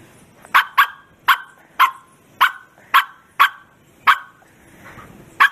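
Bearded collie barking: nine short barks about half a second apart, with a longer pause before the last one.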